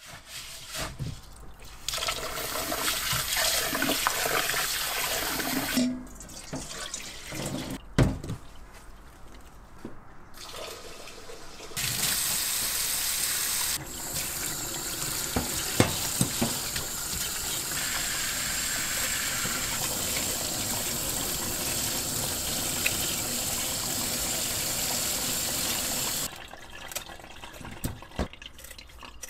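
A kitchen tap running into a stainless steel sink in long steady spells, with water swishing and sloshing between them as rice is rinsed by hand in a pot. There are occasional knocks of a pot and utensils.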